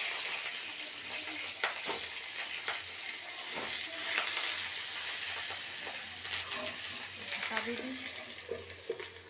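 Banana-leaf fish parcels sizzling in hot oil in a steel kadai, a steady frying hiss, with scattered clicks and knocks as the parcels are moved and a steel lid is set on the pan near the end.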